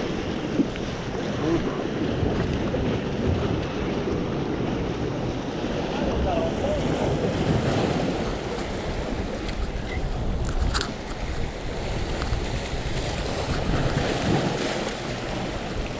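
Sea waves washing and breaking against shoreline rocks, with wind buffeting the microphone.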